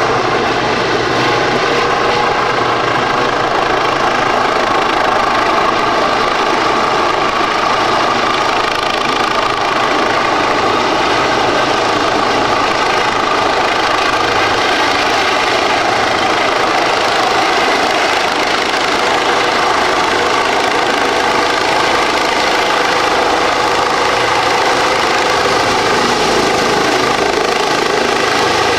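Eurocopter EC135 helicopter running loud and steady: a constant turbine whine with several held tones over dense rotor noise.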